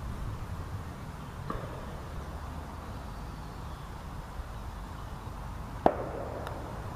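A golf putter striking a ball once, a single sharp click with a short ring about six seconds in, over a steady low outdoor rumble.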